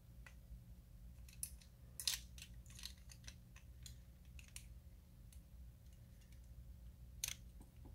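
Faint scattered clicks and ticks of small carburetor parts being handled as the float and needle are worked back into the body of a PZ27-style carburetor, with sharper clicks about two seconds in and near the end. A low steady hum runs underneath.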